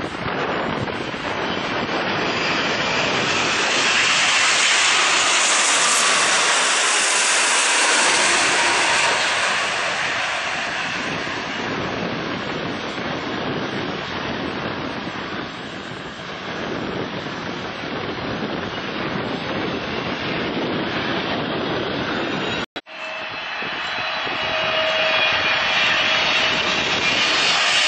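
Jet engines of a twin-engine airliner (a Boeing 787) passing low on final approach; the noise swells about four to nine seconds in, then eases off. After a sudden cut near the end, the GE90 engines of a Boeing 777-300ER are heard approaching low with a steady fan whine, growing louder.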